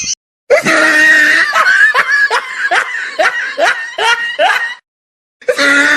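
High-pitched laughing sound effect: a held opening note, then a quick run of rising "hee" sounds. It plays once, stops, and starts over near the end.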